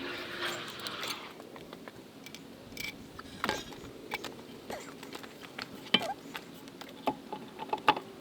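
Scattered metallic clicks, clinks and knocks of tools and wheel hardware being handled, coming irregularly, with a few sharper knocks about six and eight seconds in.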